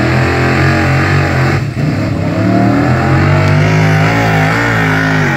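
Lifted old Ford pickup's engine running hard at high revs under load as it pulls a weight-transfer sled, the pitch climbing slightly partway through, with a brief dip about a second and a half in.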